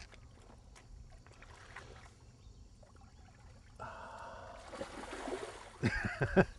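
A hooked carp thrashing as it is scooped into a landing net in shallow water: water sloshing around the net, then a few loud splashes near the end.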